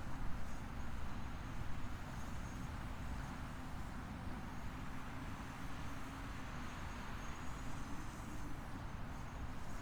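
Quadcopter drone's motors and propellers humming steadily, with a low rumble of wind underneath; the hum rises slightly in pitch about eight seconds in.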